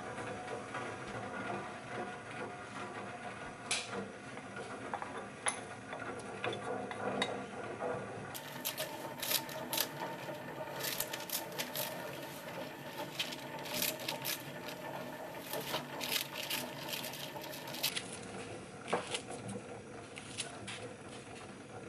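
Cooking preparation sounds: light clicks and taps of a spoon and container as seasoning and napa cabbage go into a stainless steel pan of broth, thickest in a dense run through the middle.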